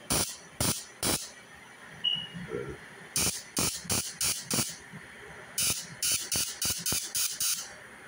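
Homemade taser-style high-voltage booster firing, its sparks snapping sharply in quick runs of about five a second with short pauses between runs.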